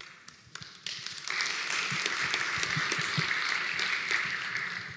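Audience applauding at the end of a conference talk. The clapping starts scattered, swells to full strength within about a second and a half, holds, and dies away near the end.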